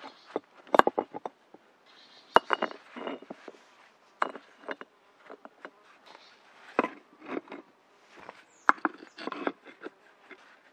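Rocks knocking and scraping against each other as stones are lifted and set in place for a rock oven, a run of irregular clacks and grinding scrapes. The sharpest clacks come about a second in, near two and a half seconds and near nine seconds.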